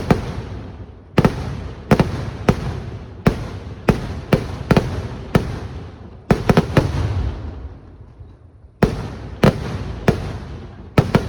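Fireworks display: a rapid, irregular string of loud, sharp bangs, well over a dozen, each trailing off in an echo, with a brief lull about eight seconds in before the bangs resume.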